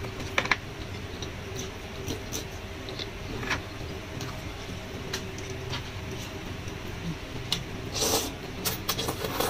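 Noodles being slurped and chewed about eight seconds in, with a few light clicks of chopsticks earlier, over a steady low hum.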